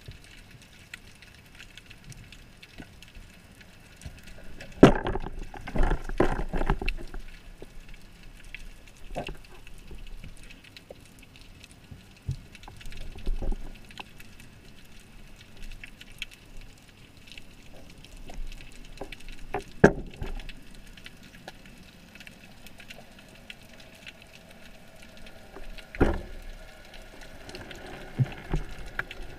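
Underwater ambience heard through a camera's waterproof housing: a faint steady hiss broken by scattered clicks and knocks, with a cluster of them about five seconds in and sharper single knocks near twenty and twenty-six seconds.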